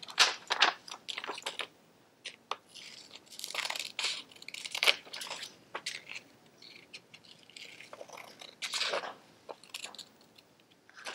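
Small scissors cutting a sheet of paper: short irregular runs of snips with pauses between the cuts.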